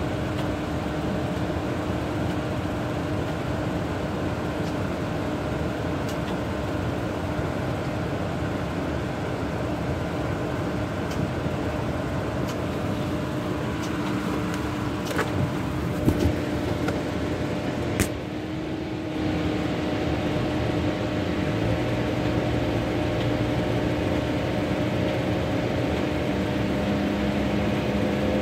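Chevy Cruze running, heard inside the cabin as a steady mechanical hum of engine and ventilation fan. A few sharp clicks come just past the middle. The hum then dips briefly and returns with a deeper tone added.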